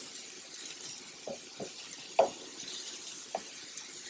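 Wooden spoon stirring diced onions, bell peppers and garlic sautéing in a pan: a few short knocks and scrapes of the spoon against the pan over a faint sizzle.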